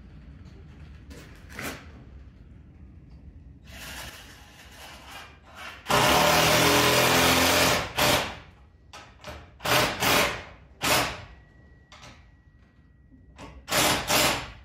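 Power drill running: one long run of about two seconds, then several short bursts.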